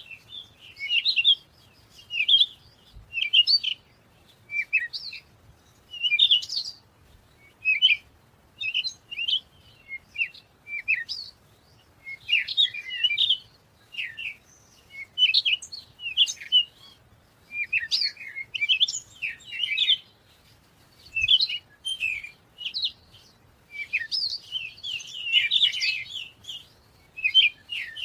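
A songbird singing in short, quick, chirpy warbled phrases that repeat about once a second, with a busier stretch near the end.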